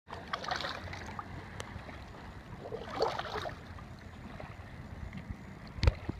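Kayak paddle strokes splashing in the water, twice, about half a second in and again about three seconds in, over a low wind rumble on the microphone. A single sharp knock sounds near the end.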